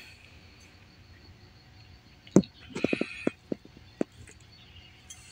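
Handling noise: a few scattered sharp clicks and taps, the loudest about halfway through, then a quick run of clicks with a faint hiss.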